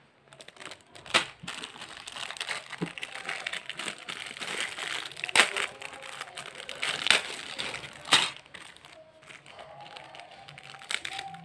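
Clear plastic packaging bag crinkling and rustling as it is handled, with a few sharper crackles scattered through. It settles down near the end.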